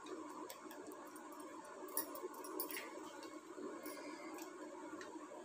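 Faint soft scrapes and a few light ticks of a steel spoon pressing chopped pistachios into soft kalakand in a foil-lined dish, over faint steady room noise.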